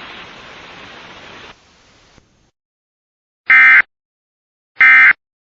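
Radio static hiss that drops away about a second and a half in, followed by two short, identical data bursts about 1.3 s apart: the SAME end-of-message ('NNNN') bursts that close an Emergency Alert System broadcast.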